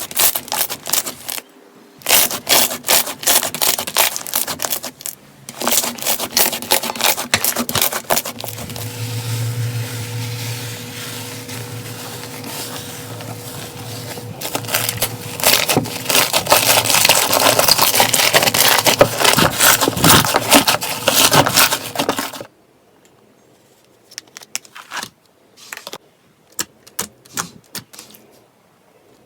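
Slime being squeezed and poked by hand, making dense crackling and clicking pops across several short clips, with a low hum underneath for a few seconds near the middle. In the last part only a few quieter clicks remain.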